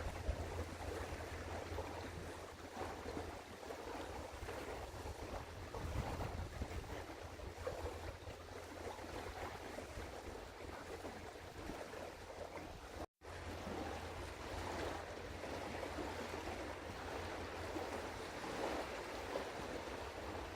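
Wind and washing water, with a steady low hum underneath. The sound cuts out completely for an instant about thirteen seconds in.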